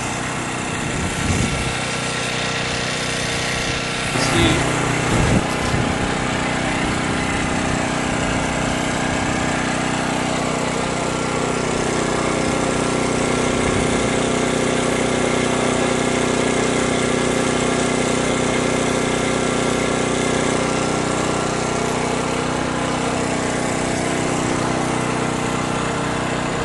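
A small engine running steadily, with a few sharp knocks about four to five seconds in.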